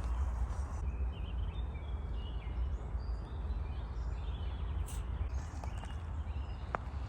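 Small birds chirping in short, high calls over a steady low rumble, with a sharp click about five seconds in.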